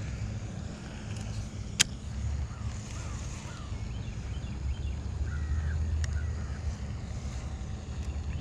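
Wind buffeting the microphone as a steady low rumble that grows stronger over the last few seconds. A single sharp click comes a little under two seconds in, with a few faint bird chirps above the rumble.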